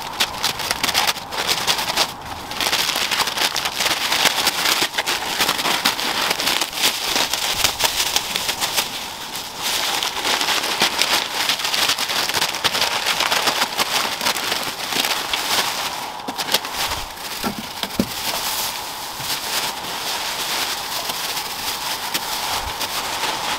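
Thin plastic masking sheet crinkling and rustling as it is pulled off a car body and bunched up by hand, a dense run of small crackles.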